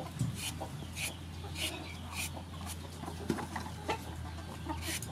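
Chickens clucking, with a short scraping stroke about every half second.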